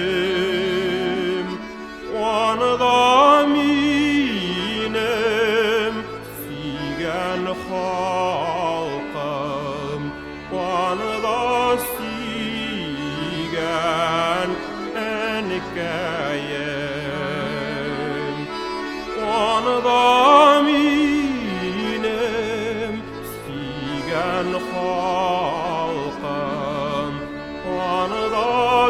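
Background music: a slow, ornamented melody with heavy vibrato over a bass line that moves in steps.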